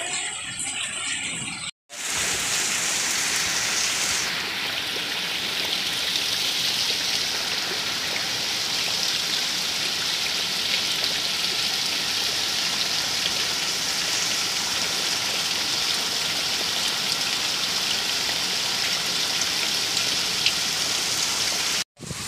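Heavy rain falling steadily on flooded fields: a dense, even hiss. It is broken by a brief silence about two seconds in and again just before the end.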